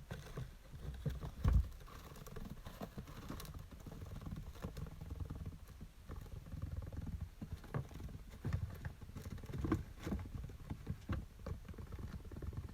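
A small pet rodent digging and kicking sawdust bedding, making irregular scratching and rustling with bits of sawdust pattering down. There is one louder thump about a second and a half in.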